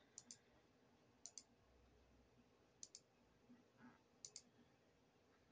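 Faint clicks of a computer mouse, four quick pairs about one to one and a half seconds apart, each pair a press and release.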